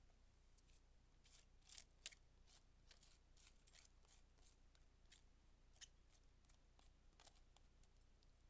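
Faint, crisp rustling and light clicks of shredded cabbage being tipped and scraped out of a plastic colander into a glass bowl: many small irregular crackles, the loudest about two seconds in.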